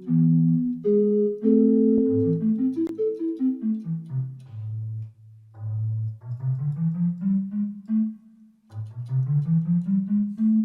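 Casio AiX-engine home keyboard playing an organ tone: chords over a low bass line, then two rising runs of notes, the second ending on a held note.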